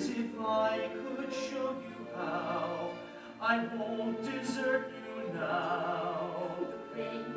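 Operatic-style stage singing: one voice with vibrato in several held phrases, over a theatre orchestra accompaniment.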